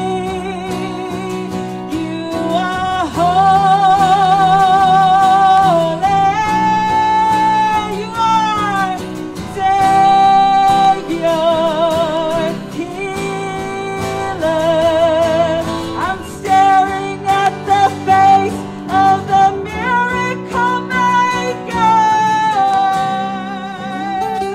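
Worship band playing: a woman singing long held notes with vibrato, without clear words, over acoustic guitar and electric guitar.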